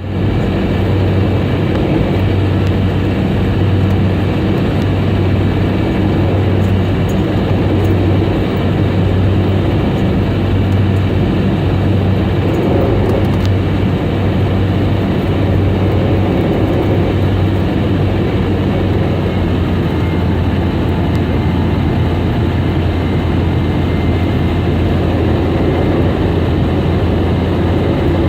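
Steady engine and airflow noise inside the cabin of a Boeing 717 with its rear-mounted Rolls-Royce BR715 turbofans running, a constant low hum under a loud even rush.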